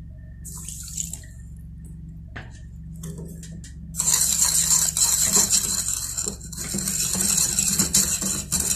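Metal spoon stirring granulated sugar into water in a plastic bowl, a continuous gritty scraping with small clicks of the spoon on the bowl that starts about halfway through. A short pour of water onto the sugar comes about half a second in.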